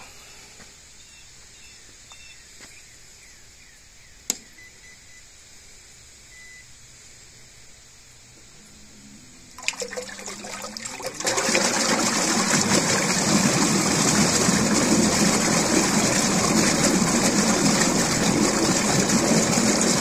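Newport Vessels 36 lb thrust electric trolling motor spinning up in a water-filled barrel. About ten seconds in comes a rising whine as the servo tester's knob is turned, then the propeller churns the water loudly and steadily. Before that there is only a faint hum and a single click.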